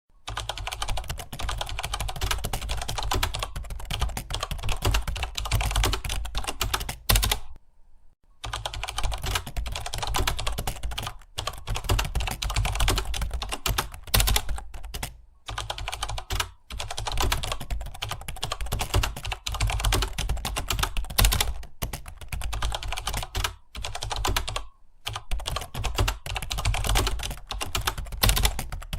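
Computer keyboard typed on quickly and continuously, a rapid stream of keystroke clicks with brief pauses, the longest about a quarter of the way in, over a steady low hum.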